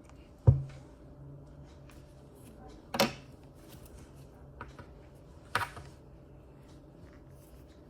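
Objects handled on a table: a hard thump about half a second in that leaves a brief low ring, then two sharper clicks, near three seconds and again near five and a half, with a few faint ticks between.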